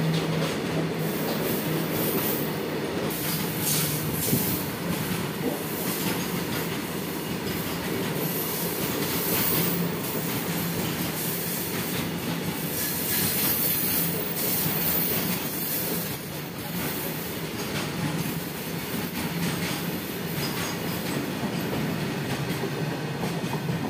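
Covered freight wagons of a long goods train rolling past on the track: a steady rumble with wheels clattering over the rail joints.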